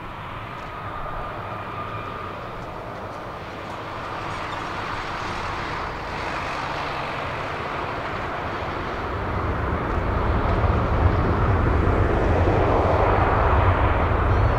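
Airbus A340-300's four CFM56 jet engines running as the airliner taxis and lines up. About ten seconds in they grow much louder with a deep rumble as the engines spool up for the takeoff roll.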